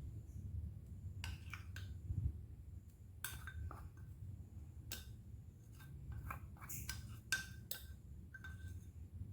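Light clinks and taps of a kitchen utensil against dishes, scattered irregularly throughout, as ingredients are portioned onto plates, over a low rumble.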